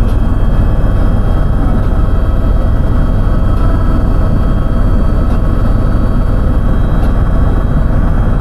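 Helicopter cabin noise in flight: a loud, steady engine and rotor drone with a few thin high tones over it.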